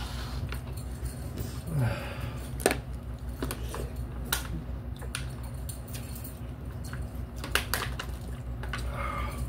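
Scattered small clicks and scrapes of a spoon and fork against cup-noodle cups during eating, over a low steady hum.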